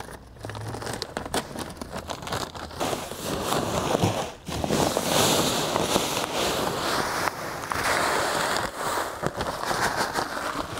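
Dry Humichar pellets poured from a plastic bag into the plastic hopper of a 3-point electric spreader: a steady rushing hiss of granules, with the bag crinkling and rustling. It starts as scattered rattles and crinkles, and the pour runs full and even from about halfway through.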